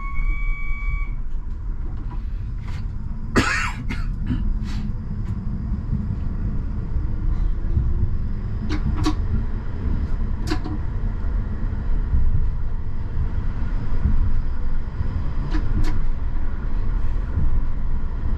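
Inside a Škoda 39T low-floor tram, an electronic chime ends, then the tram runs with a steady low rumble that grows slightly louder. A few sharp clicks and knocks break in, the loudest about three seconds in.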